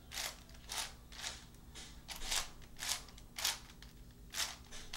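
Plastic 3x7x7 cuboid twisty puzzle, modded from a Shengshou 7x7, being turned by hand: a string of short clacks as its layers snap round, about two a second.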